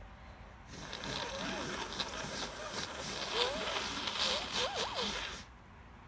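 A person blowing their nose, a rushing, breathy run of blows with a few brief wavering nasal tones, starting about a second in and lasting about four and a half seconds; the sneezer takes it for the start of a cold.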